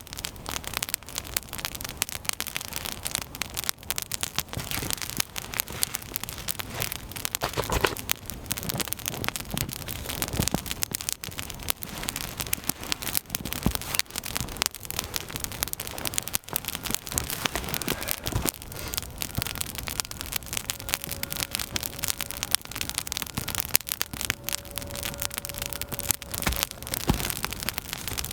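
Campfire crackling with dense, quick irregular pops. A faint thin whistle is held for a few seconds in the latter part.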